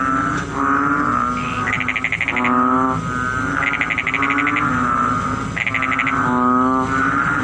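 Frogs calling: repeated drawn-out low calls, overlapped about every two seconds by short bursts of rapid, higher-pitched pulsing trills.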